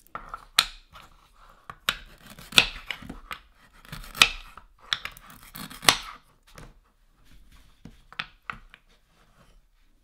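Wooden toy watermelon slices clacking on a wooden cutting board as a toy knife cuts through their velcro joints: a series of sharp knocks with short scratchy velcro rips, quieter and sparser in the last few seconds.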